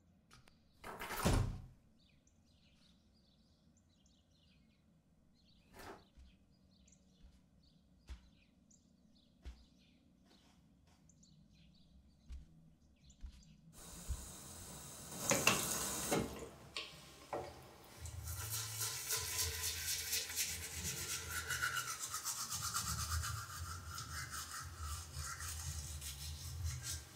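Teeth being brushed with a toothbrush: a fast, steady scrubbing through the last nine seconds or so. Before it, a few soft knocks in a quiet room, and a louder burst of noise about halfway through.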